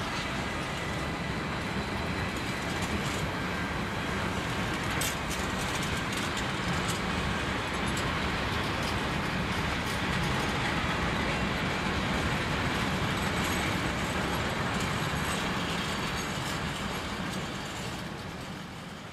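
Container freight train's flat wagons rolling past at close range: a steady rumble of wheels on rail with scattered sharp clicks, fading out near the end.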